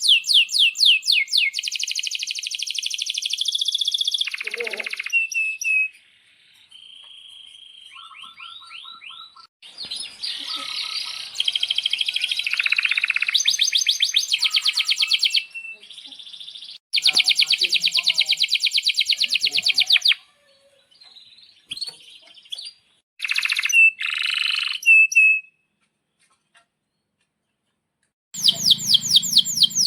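Male domestic canary singing: phrases of fast repeated chirps and long rolling trills, with short pauses between them. A couple of seconds of quiet near the end is followed by a new fast phrase.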